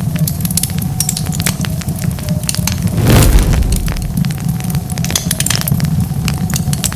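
Wood fire crackling and popping steadily, with a constant low rumble of flames under many sharp snaps. About three seconds in there is a louder rush lasting about half a second.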